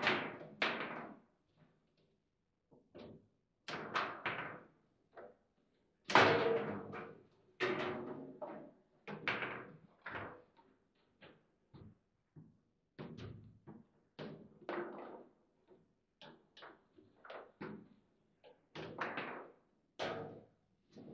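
Foosball table in play: the ball struck by the rod figures and knocking against the table, with rods clacking, a run of irregular knocks and thuds, the loudest about six seconds in.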